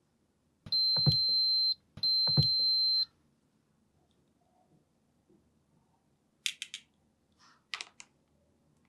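Battery toy dental tool beeping twice, each a steady high-pitched beep about a second long that starts with a click. Two short light plastic clicks follow near the end.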